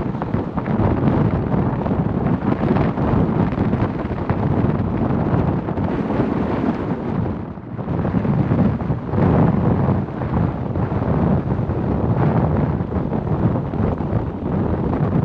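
Strong offshore wind buffeting the microphone in uneven gusts, with a brief lull about eight seconds in.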